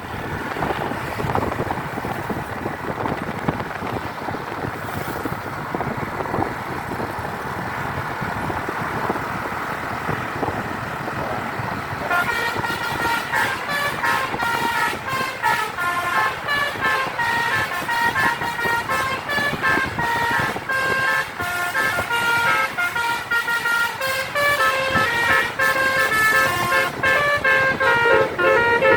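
Road and wind noise of a moving tour bus. About twelve seconds in, a Basuri telolet horn starts up, playing a fast tune of short, stepped notes over and over.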